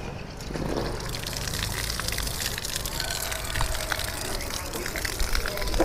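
Water poured steadily from a container onto a potted plant's soil, a continuous gush.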